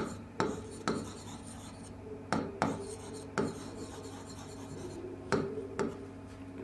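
Marker pen writing on a whiteboard: short scratchy strokes and taps at uneven intervals, about eight in all, over a faint steady hum.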